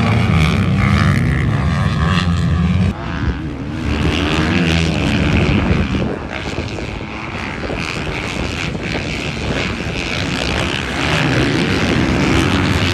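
Several motocross dirt bikes racing around a dirt track, their engines revving and buzzing together. The sound drops suddenly about three seconds in and changes again about six seconds in.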